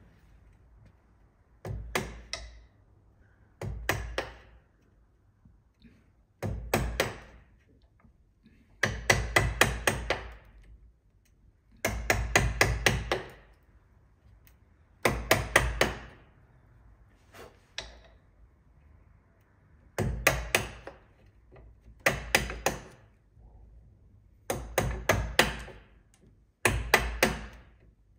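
A wooden mallet striking a wide chisel, chopping out the waste of a halving joint in timber. It comes as runs of several quick blows, a run every two seconds or so.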